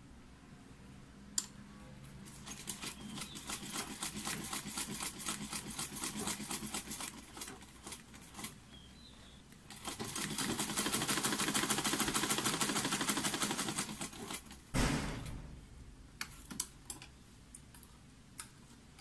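Old-style black domestic sewing machine stitching in two runs: a steady, moderate run of stitches, then a faster, louder run about ten seconds in that ends in a single heavy thump. A few light clicks follow near the end as scissors trim the thread.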